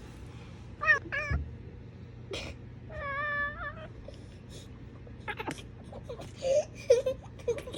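Savannah cat chirping and trilling at birds: two short chirps about a second in, a longer wavering trill around three seconds, then quick clicky chattering and brief chirps near the end. This is the excited call of a cat watching prey it cannot reach.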